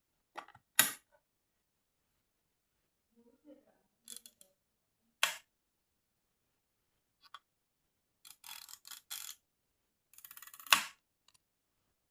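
Zenit EM 35 mm SLR film camera being wound and fired three times. Each time, softer ratcheting clicks of the film-advance lever lead into one sharp click of the mechanical, horizontally running cloth focal-plane shutter releasing.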